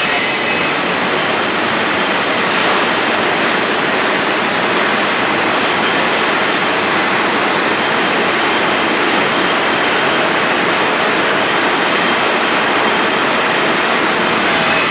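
Steel-coil slitting line running: a steady, loud machine noise with thin, constant high-pitched whines.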